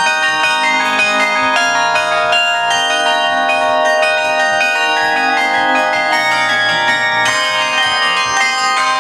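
A mobile carillon of tuned bells playing a tune: notes struck in quick succession, each ringing on under the next so that the tones overlap.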